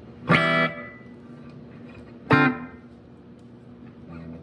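Electric guitar played through a Sonicake Matribox II Pro multi-effects processor: two short strummed chords about two seconds apart, each cut off quickly, with a faint low hum between them.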